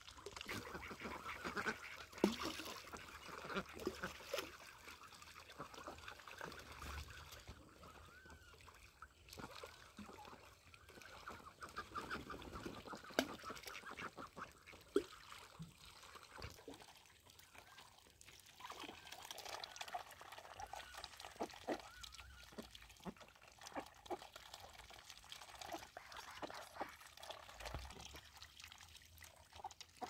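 A flock of domestic ducks quacking on and off while they swim and feed, with small splashes and dabbling in the water.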